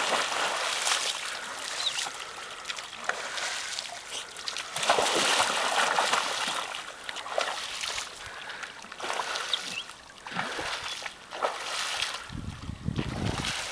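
A dog splashing as it bounds and paddles through shallow lake water, in uneven surges of splashing.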